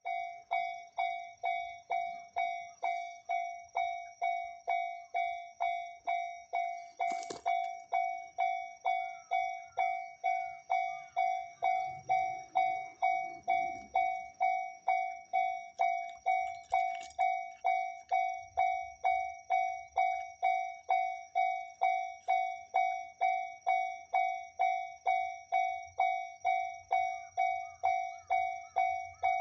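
Japanese railway level-crossing warning bell ringing its 'kan-kan' clang steadily, about two strikes a second. A faint low rumble sits beneath it at times.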